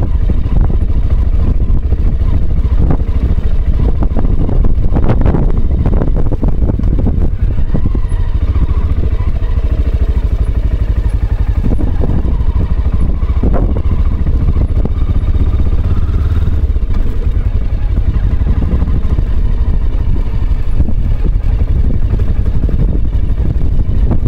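Aprilia Pegaso motorcycle's single-cylinder engine running at riding speed, with wind buffeting the camera microphone as a heavy low rumble. The engine note rises for a few seconds near the middle.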